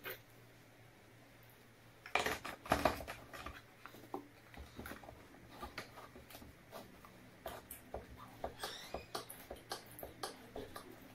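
Plastic lotion pump and bottle handled by hand: a burst of scraping and rattling, then a run of small irregular plastic clicks, with faint short squeaks near the end as the pump is screwed on and worked.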